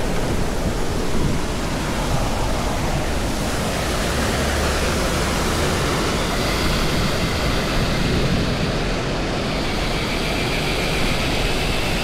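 Waterfall pouring over a spillway: a steady rush of falling water. A faint high whine joins about halfway through.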